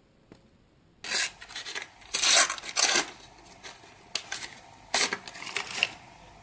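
Foil Panini sticker packet being torn open by hand: loud bursts of crinkling and tearing wrapper starting about a second in, then quieter rustling and a few sharp crackles as the stickers come out.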